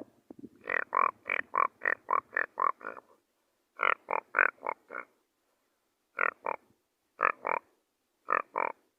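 A man imitating a frog's croaking with his mouth, copying a smaller frog with a soft, thin voice. There is a quick run of about eight croaks, then four more, then three pairs of croaks spaced about a second apart.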